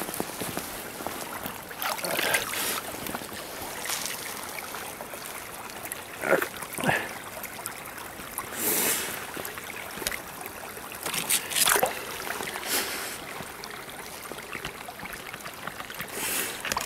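Water trickling and running at a small beaver dam, with short splashes and scrapes now and then as a stick pokes into the water at the edge of the ice.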